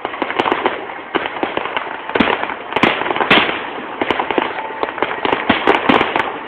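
Aerial fireworks going off in quick succession: a dense, irregular crackle of sharp pops and bangs, with a few heavier booms around two to three seconds in.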